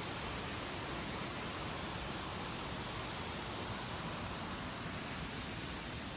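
Harajiri Falls' wide waterfall, a steady, even rush of falling water.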